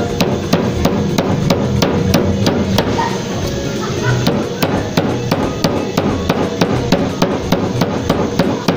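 A wooden stick beating whole black peppercorns and other whole spices in a plastic bag against a hard surface, a steady run of sharp knocks about three a second. The spices are being crushed by hand in place of a grinder.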